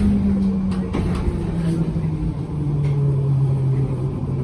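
1972 Stock London Underground train running, its motor whine falling in pitch in a few steps as the train slows, over a low rumble with scattered clicks from the wheels on the track.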